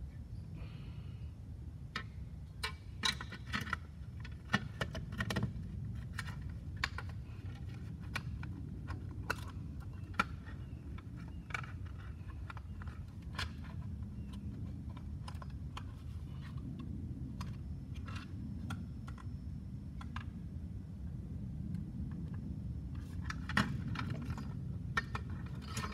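Scattered plastic clicks and knocks as the ToolKitRC M4Q charger's circuit board and plastic case are handled and pressed together by hand, with clusters of clicks about 3 and 5 seconds in, around 10 to 12 seconds, and again near the end.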